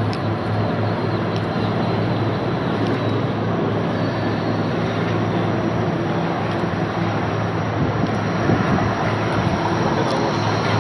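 Steady road traffic noise with a low hum, as a Bombardier Flexity 2 light rail tram approaches along the track. A faint high whine comes in about four seconds in and grows stronger near the end.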